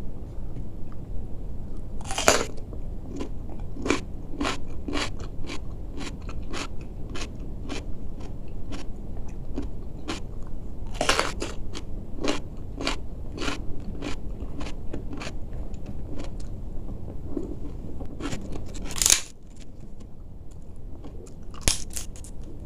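Close crunching bites into raw cucumber followed by steady wet chewing, about two chews a second, with loud crunches about 2 s and 11 s in. Near the end, a crisp bite into a fried cracker.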